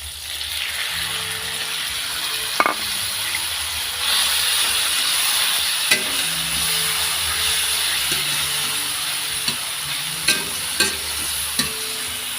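Food sizzling in a frying pan, a steady hiss, with a few sharp clinks of a utensil against the pan.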